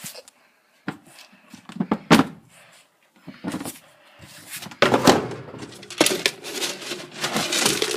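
Household handling noises: a couple of sharp knocks, then a busy run of knocks, clatter and rustling from about five seconds in, such as a door or cupboard being opened and things handled while cat food is fetched.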